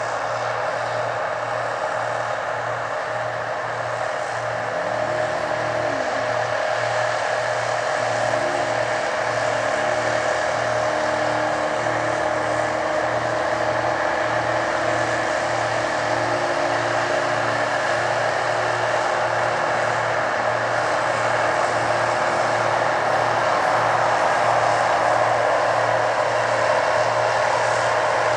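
Heavy machinery engine running steadily, a constant drone with a steady whine and a low pulsing throb, slowly growing louder.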